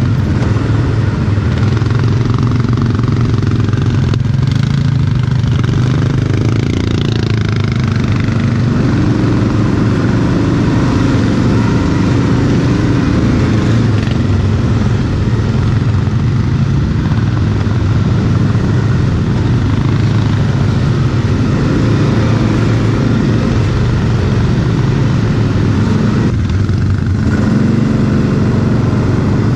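Quad bike (ATV) engine running hard during off-road riding, its revs rising and falling.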